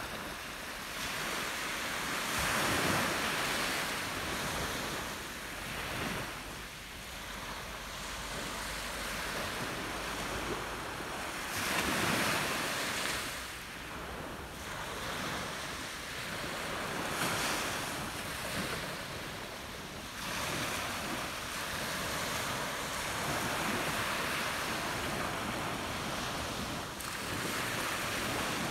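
Small sea waves breaking and washing up a pebble beach: a rushing surf that swells and falls back every few seconds.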